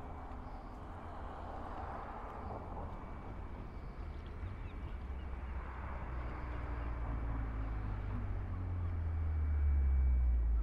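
Low engine rumble of a vehicle drawing nearer, growing steadily louder over the last few seconds, over outdoor background noise.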